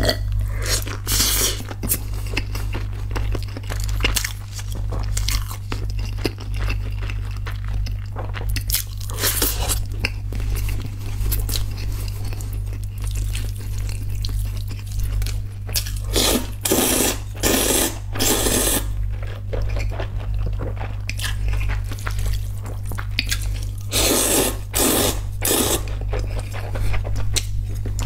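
Close-miked eating sounds: a person slurping noodles in loud bursts that come in groups every several seconds, with chewing between them, over a steady low hum.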